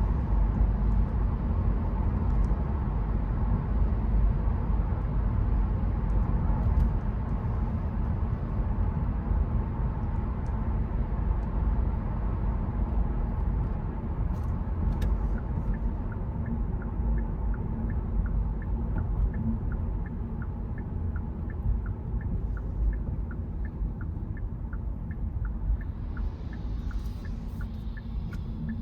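Steady low road and engine rumble of a car driving, heard from inside. About halfway through a regular ticking starts, about three ticks every two seconds, and carries on.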